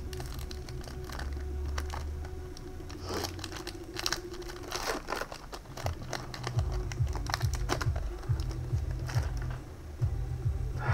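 Foil booster-pack wrapper crinkling as it is torn open and handled, with an irregular run of small crackles and clicks.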